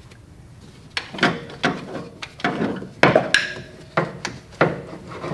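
Hand tools clicking, knocking and scraping against metal in irregular bursts, starting about a second in, as a stubborn fastener is worked loose.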